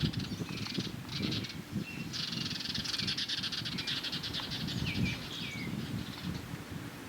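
Songbirds chirping, with a fast buzzing trill through the middle, over low rustling and bumping.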